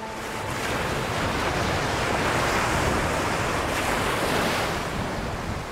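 Sea surf washing in: a rushing wave sound that swells over the first couple of seconds and eases off near the end.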